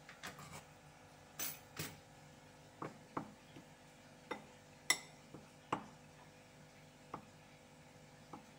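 Metal spoon stirring a bowl of dry flour and cocoa-powder mix, clinking against the bowl in irregular taps, about a dozen in all, the sharpest about five seconds in.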